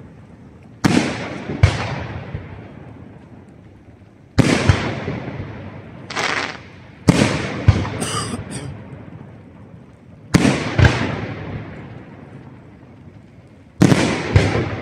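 Aerial firework shells bursting overhead: about nine sharp bangs, singly and in quick pairs a few seconds apart. Each bang is followed by a long rumbling echo that fades away.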